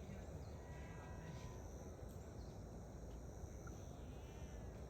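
Quiet outdoor background: a steady low rumble with faint, scattered high-pitched chirps.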